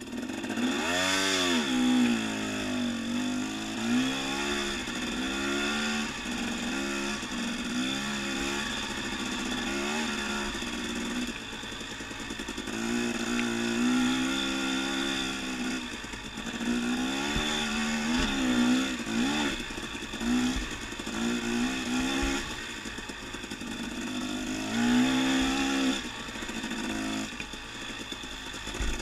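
Dirt bike engine being ridden on a trail, its revs rising and falling every second or two with the throttle, with a strong rev-up about a second in.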